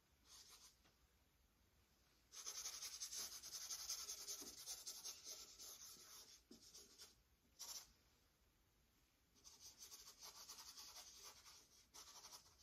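Faint scratchy rubbing of a flat paintbrush scrubbing thinned oil paint across a painting panel. It comes as repeated strokes in three spells: a longer run starting about two seconds in, a brief stroke near the middle, and another run in the last few seconds.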